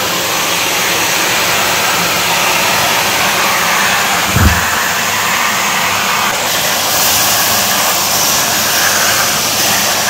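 Canister vacuum cleaner running with a steady whoosh of motor and suction, its hose nozzle held over a tiled floor. A brief low thump about four and a half seconds in.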